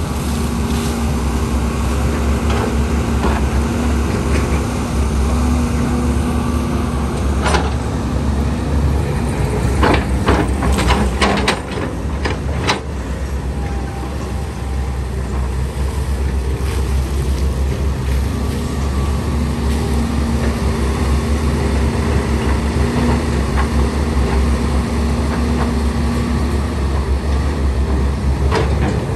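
Caterpillar 320D hydraulic excavator running steadily as it digs, its diesel engine and hydraulics working the arm and bucket. A few sharp metallic clanks from the bucket and linkage come about 7 to 13 seconds in.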